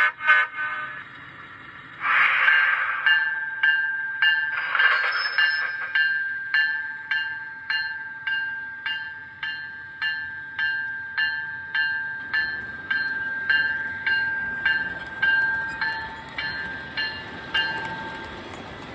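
Model locomotive sound system playing a short air hiss, then an electric locomotive's bell ringing steadily at about 1.7 strikes a second, with a second hiss early on. The bell stops about a second before the end, as the train pulls out.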